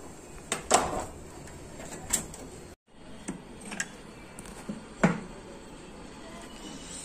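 Sharp plastic clicks and knocks from a Canon iR 3300 copier's drum unit being handled and taken apart by hand, the loudest about a second in and about five seconds in.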